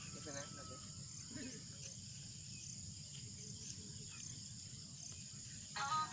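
Steady insect chirring with regular short chirps, and faint voices in the first second or so. Music with singing starts abruptly just before the end.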